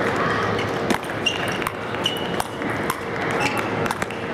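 Sandpaper table tennis rally: the ball clicking off the table and the sandpaper bats about twice a second, irregularly, over a steady murmur of a large hall. A few short high squeaks come in between the hits.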